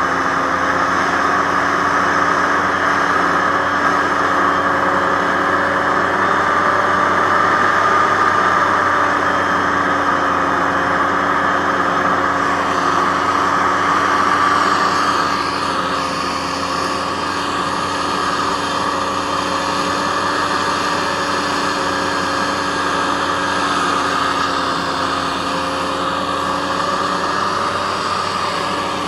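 Aerocruiser SA-1100 hovercraft's engine and ducted fan running steadily at cruise, with a heavy rush of air and water. The level and the upper tone ease off slightly about halfway through.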